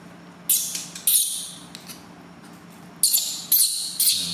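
Newborn baby monkey crying in loud, high-pitched squeals while being bathed: two sharp cries in the first second or so, then three close together near the end, each starting suddenly and fading within half a second.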